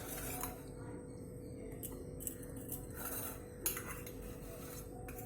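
A spoon clinking lightly against a bowl, a few separate soft taps, over a faint steady hum.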